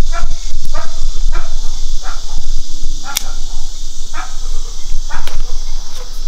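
A dog barking repeatedly, quickly at first and then about once a second, over a steady high hiss.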